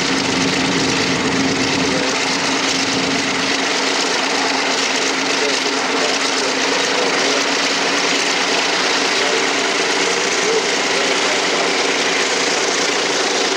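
Vought F4U Corsair's 18-cylinder Pratt & Whitney R-2800 radial engine running steadily at low power on the ground, with an even, unchanging note.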